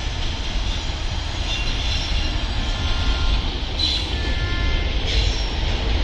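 A goods train of covered wagons rolling past: steady rumble of wheels on rail, with brief faint metallic wheel squeals about four seconds in.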